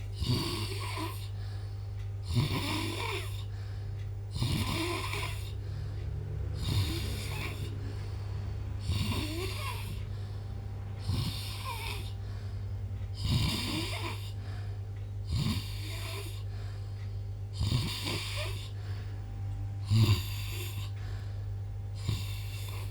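A man snoring in deep sleep, in a regular rhythm of about one breath every two seconds. Each snore is a short rough rumble with a breathy hiss.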